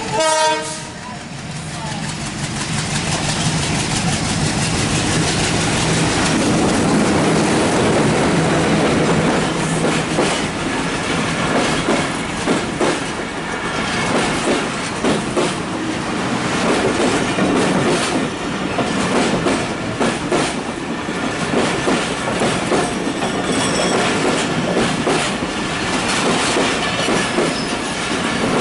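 Diesel-hauled express passenger train passing close at speed over a level crossing. A horn blast cuts off about a second in, then the locomotive's engine runs steadily for several seconds. After that comes a long run of coaches with rapid clickety-clack of wheels over the rails.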